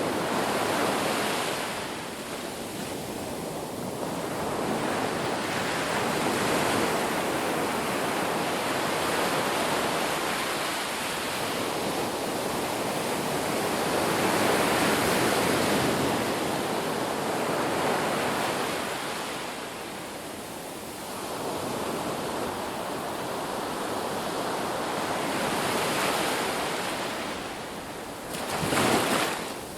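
Ocean waves on a beach: a continuous wash of surf that swells and recedes every few seconds, with a brief louder wave breaking near the end.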